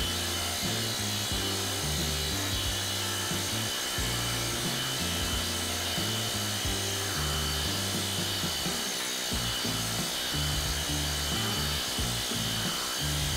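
Background music with a changing bass line, over a hoop-style planishing hammer running steadily as it smooths hammer marks out of a shrunk sheet-metal dish.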